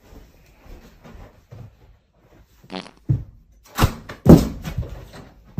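Faint rustling, then a brief pitched squeak and a run of sharp knocks and thuds, the loudest a little past four seconds in.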